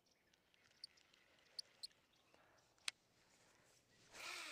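Near the end, a cast with a baitcasting rod: a swish and the reel's spool whirring as line pays out, its whine falling in pitch as the spool slows. Before it are a few faint, short, high bird chirps and one sharp click.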